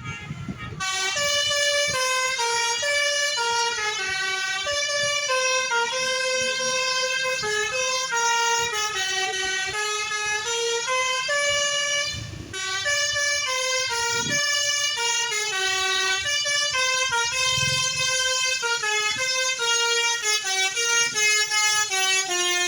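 Multi-tone telolet air horn on a bus playing a long melody in quick stepped notes, with a brief pause about halfway through.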